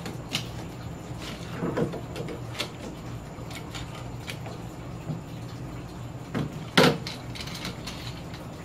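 Aluminium and plastic fishing-rod-rack parts being handled and fitted together: scattered clicks and knocks, the loudest nearly seven seconds in, over a steady low hum.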